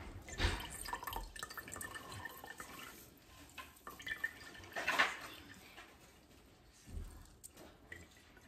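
Faint dripping and trickling of elderberry juice into a glass mason jar as a cheesecloth bag of boiled berries is squeezed by hand, a little louder about half a second in and again about five seconds in.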